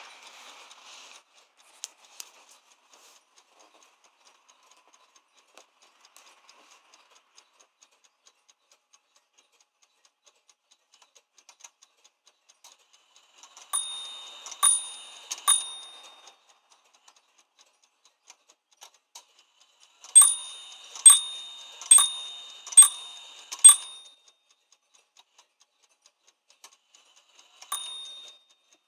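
Tupman carriage clock striking on its bells: three strokes about a second apart, then after a pause five louder strokes, then a single stroke near the end, each ringing on briefly. Its movement ticks faintly and steadily between the strikes.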